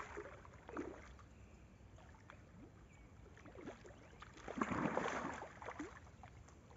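Water splashing and sloshing in the shallows as a hooked carp is worked into a landing net, with a louder burst of splashing about five seconds in.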